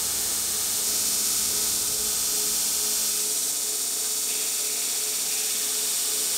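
Belt grinder running with steel held against its abrasive belt, a steady hiss over the motor's hum, as the contact faces of the Damascus bars are ground clean for forge welding.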